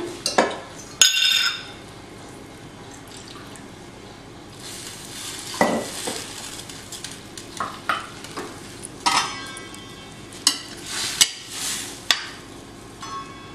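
A steel ladle scraping and clinking against a stainless steel kadhai as moong dal is stirred, over a steady sizzle. About midway, water is poured into the pan.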